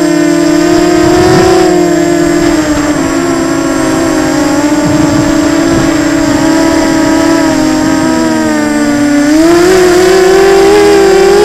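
Small FPV quadcopter's brushless motors and propellers whining close to the onboard camera. The pitch holds fairly steady, sags lower about eight seconds in, then climbs back and grows a little louder as the throttle comes up.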